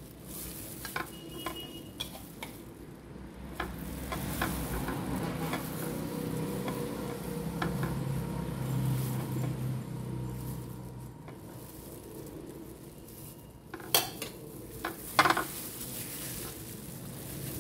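A spoon scraping and clinking in a bowl as fajita filling is scooped out and spread on a tortilla, with plastic food-prep gloves crinkling. Two sharp clicks near the end are the loudest sounds.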